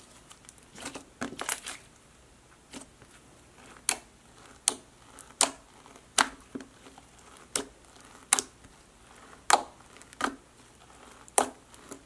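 Clear glue slime being kneaded and pressed flat by hand. It gives about a dozen sharp clicking pops, roughly one a second, as pockets of air burst, with faint squishing between them.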